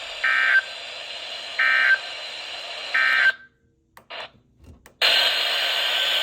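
NOAA Weather Radio SAME end-of-message data bursts: three short, identical warbling digital tone bursts about a second and a half apart, marking the end of the severe thunderstorm warning. Right after the third burst the transmission cuts off to near silence, and about five seconds in the receiver's static hiss comes back.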